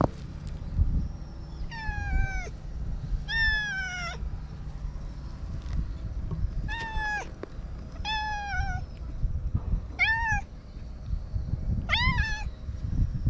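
Orange tabby cat meowing six times, a second or two apart, each meow a short call that falls in pitch.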